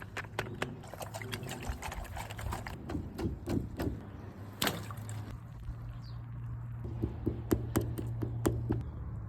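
Water pouring and splashing, mixed with many sharp clicks and taps, over a steady low hum.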